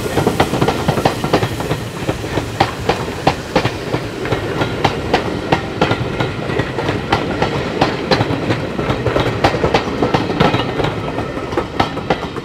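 Passenger coaches of a steam-hauled train rolling past, their wheels clicking over rail joints a few times a second, fading at the very end as the last coach goes by.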